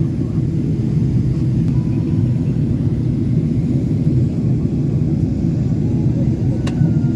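Steady low rumble inside the cabin of a Boeing 777-300ER in flight, the engines and airflow heard from a rear economy window seat. A single sharp click near the end.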